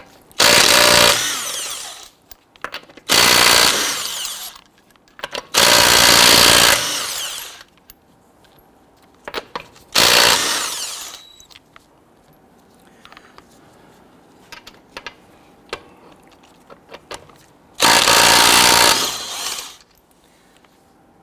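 Cordless impact wrench with a 21 mm socket running in five bursts of one to two seconds, loosening and spinning off a Toyota RAV4's lug nuts. Light clicks come between the bursts.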